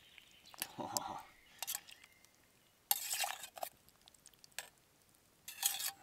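Metal ladle stirring a thick stew in a metal camping pot, scraping and clinking against the pot in several short strokes.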